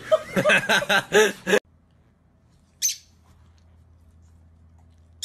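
A woman laughing, cut off suddenly after about a second and a half; then a lovebird gives two short, shrill chirps, one about three seconds in and one at the end.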